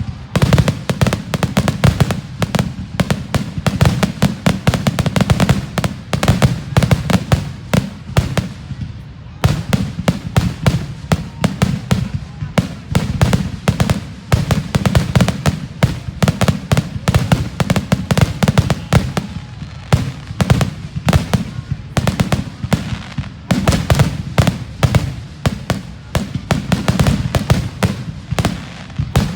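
Fireworks finale: a rapid, nearly continuous barrage of aerial shell bursts, many booms and cracks a second, with a brief lull about nine seconds in.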